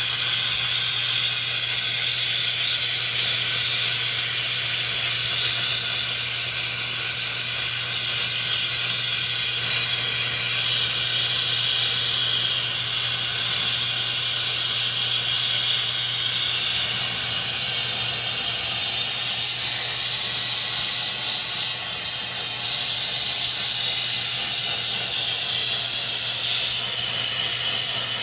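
Oxy-fuel torch flame hissing steadily at full heat as it melts platinum in a crucible, with a steady low hum underneath.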